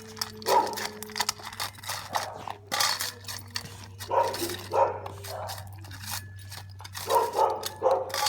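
Dalmatian puppy barking in a string of short, sharp barks at irregular intervals, with a steady low hum underneath.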